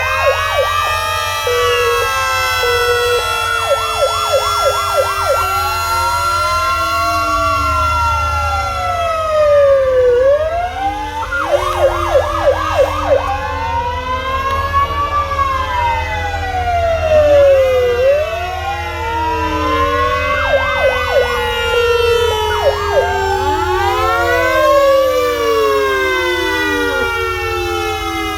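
Several emergency-vehicle sirens sounding at once, slow rising-and-falling wails overlapping with short runs of fast yelps, over a steady low rumble of vehicles on the road.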